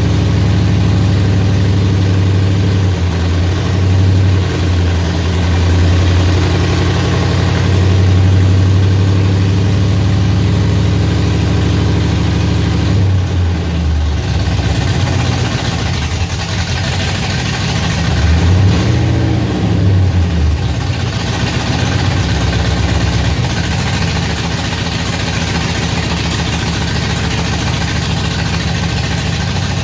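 1995 GMC Sonoma's engine running at idle on its first start after sitting, its note shifting about halfway through and wavering briefly a few seconds later. The owner puts its only half-healthy running down to an injector problem from sitting too long.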